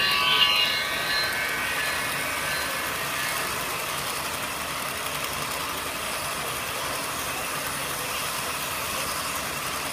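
Model trains rolling past close by on the layout's tracks: a steady running noise of wheels on rail and motors, with a brief brighter pitched sound in the first second.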